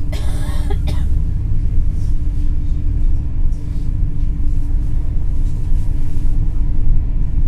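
Cabin noise of an NS ICNG electric intercity train on the move: a deep, steady rumble with a constant hum over it. A short, louder burst of sound comes in the first second.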